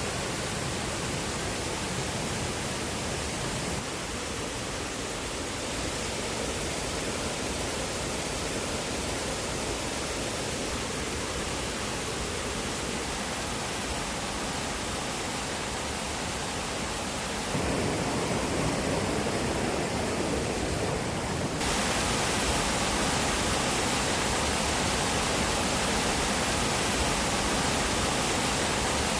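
Steady rushing of water in a mountain gorge, from the stream's rapids and Toryu Falls. The rush changes abruptly and grows a little louder, with more low body about two-thirds of the way through and more hiss shortly after, then holds steady.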